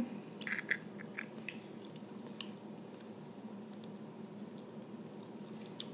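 Soft wet mouth sounds of eating boiled crawfish: a few small squishes and clicks in the first second and a half, then only faint scattered clicks over a steady low hum.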